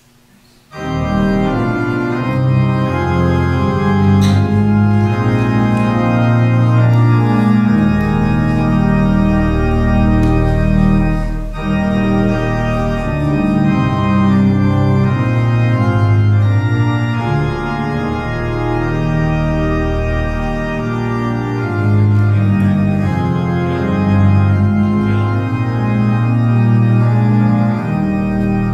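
Church organ playing sustained full chords over a moving bass line, starting abruptly about a second in.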